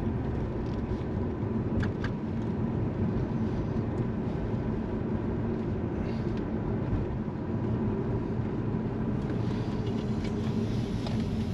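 Car being driven, its engine and road noise heard steadily from inside the cabin, with a couple of faint clicks about two seconds in.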